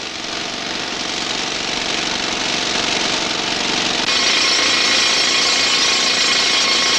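Rock drill hammering steadily. It fades up over the first few seconds, then grows louder from about four seconds in.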